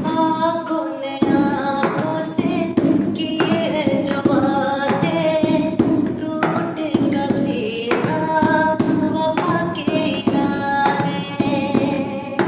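A man singing a Hindi film-style song, his voice wavering on held notes, over a steady rhythm of hand-tapped percussion.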